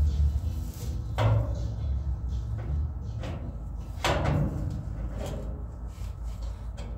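A chrome bumperette being handled and test-fitted against a car's metal front end: a few hard metal clunks, the clearest about a second in and about four seconds in, over a steady low rumble.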